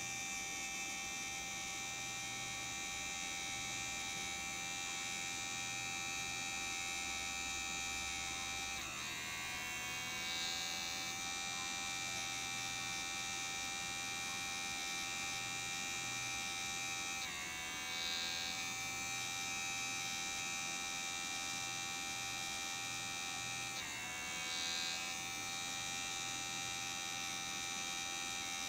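Small DC motor of a homemade plastic-bottle mini blender spinning its blades and chopping green chillies, a steady high whine. Three times the pitch drops suddenly and climbs back up.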